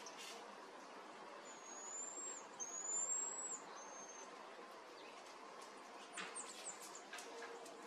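Black-tufted marmoset giving high, thin whistled calls: a long whistle, then a longer one that rises before dropping off, then a short one. A quick run of short high chirps follows near the end.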